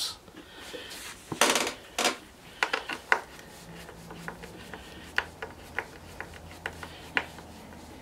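Hand screwdriver driving a screw to fasten an aftermarket handlebar to a chainsaw's housing. Two louder scraping knocks about one and a half to two seconds in, then a run of short, irregular clicks as the screw is turned.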